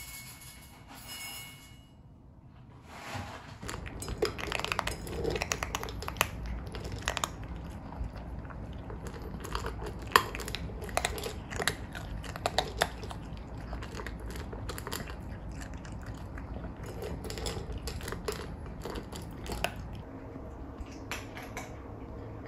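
A British Shorthair and an American Shorthair cat eating from stainless-steel bowls: a fast, irregular run of crunching and chewing clicks, starting about three seconds in.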